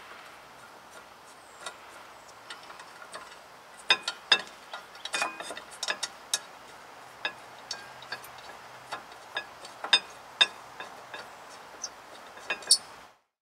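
Small metal clicks and taps of brake pad hardware clips being handled and seated on a disc brake caliper bracket, irregular and more frequent after the first few seconds.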